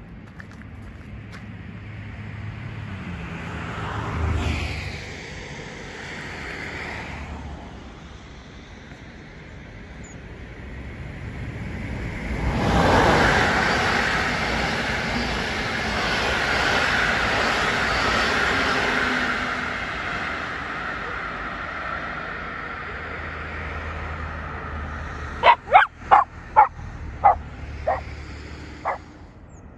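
An electric locomotive-hauled passenger train passes on the tracks below: its wheel and rail noise swells about twelve seconds in and fades slowly over the next ten seconds. Near the end a dog barks about seven times in quick succession.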